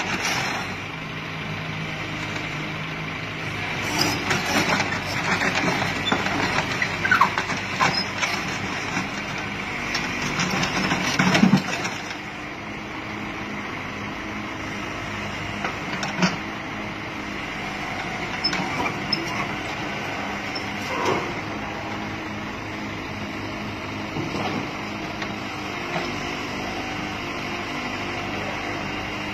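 Mini excavator's diesel engine running under hydraulic load, with clanks and knocks as its steel tracks are levered and moved onto the truck's steel bed, loudest in the first twelve seconds. After that the engine runs more steadily, with only an occasional knock.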